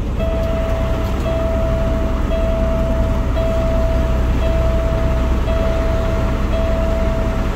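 A reversing alarm sounding long steady beeps with short breaks, about one a second, over the low running of a semi truck's diesel engine as the rig backs toward a loading dock.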